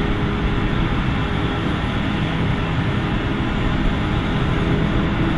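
Claas Jaguar 850 self-propelled forage harvester working under load, chopping maize with a steady, loud mechanical drone, joined by the tractor running alongside.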